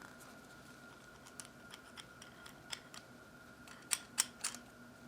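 Small sharp clicks and taps of hard plastic parts being handled and pressed together as a 3D-printed replacement part is fitted into a toy's mechanism, with a quick cluster of louder clicks about four seconds in over a faint steady hum.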